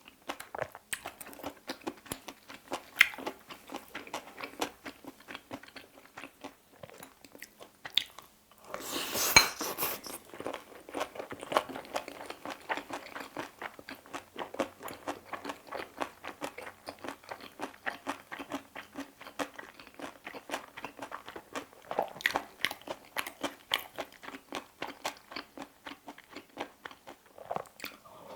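Close-miked chewing and crunching of bibimbap: a dense, continuous run of wet mouth clicks. About nine seconds in, a brief louder noisy rush with a sharp click cuts across the chewing.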